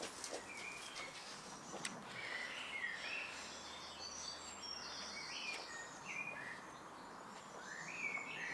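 Small birds chirping and singing in short, repeated phrases over a faint steady background hiss, with a single light tap about two seconds in.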